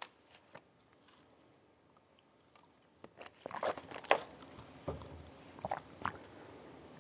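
Faint rustling with scattered soft clicks and knocks, busier from about three seconds in.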